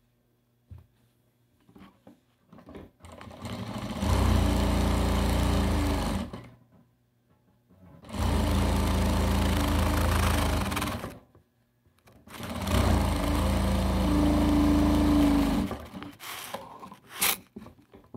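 Sewing machine stitching patchwork scraps onto felt in three runs of about three seconds each, each speeding up and then running steadily, with short pauses between. Light fabric-handling sounds and a sharp click near the end.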